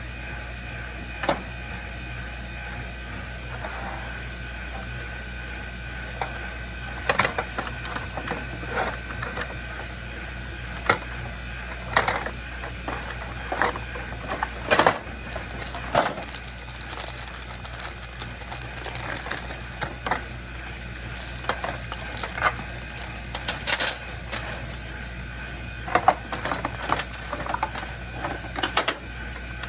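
Irregular clicks, taps and rattles of wire connectors and plastic parts being handled as a refrigerator defrost timer is wired up and mounted. A steady hum with a faint high whine runs underneath.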